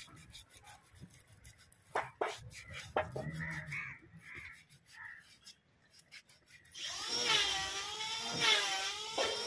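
Hand-sanding of a carved wooden table base: sandpaper rubbing and scratching on the wood in short strokes with a few sharp scrapes. From about seven seconds in, a louder high, wavering call takes over.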